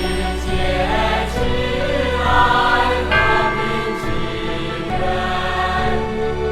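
Slow music with choir-like singing over held chords.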